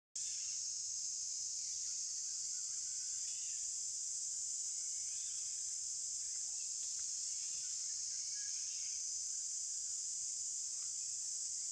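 Steady, high-pitched drone of a forest insect chorus, with faint scattered chirps.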